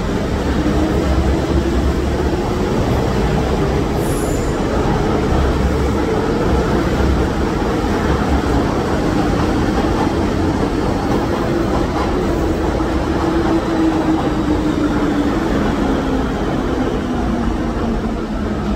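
Electric metro train running alongside a station platform: a steady, loud rumble with a motor whine that rises and falls in pitch.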